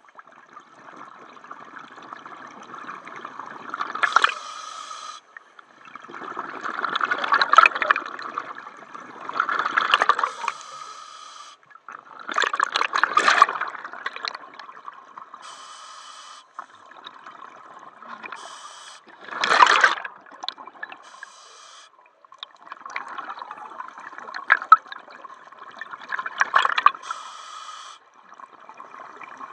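Scuba diver breathing through a regulator underwater: short hissing inhalations through the demand valve alternate with louder, gurgling bursts of exhaled bubbles, several breaths in a row.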